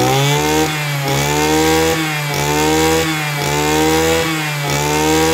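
Ranee (Robin) 302 30cc brush cutter engine running at high speed, revved up and down about once a second.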